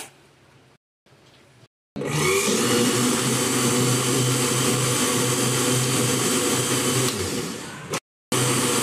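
Westpoint electric countertop blender starting up about two seconds in and running steadily at one constant pitch, blending yogurt and milk into lassi. The sound breaks off briefly near the end and comes straight back.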